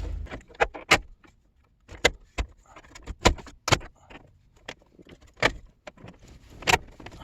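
About ten sharp clicks and taps, spaced irregularly, from buttons and switches on a 1999 Chevy Suburban's dash being pressed while its replacement HVAC control panel's lights are tested.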